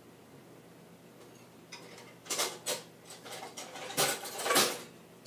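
Kitchenware clattering as a measuring cup is fetched: after a quiet start, a run of sharp knocks and rattles begins about two seconds in, with the loudest clatters near the end.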